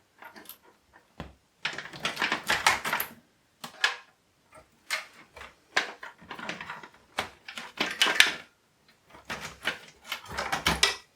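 Clicks and rattles of SATA and power cables being pulled off the drives inside a computer case, coming in several short clattery clusters with pauses between.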